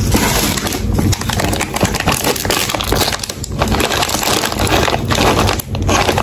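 Lay's potato chip bags crinkling with dense crackles as they are handled, with chips sliding out onto a wooden tray near the start.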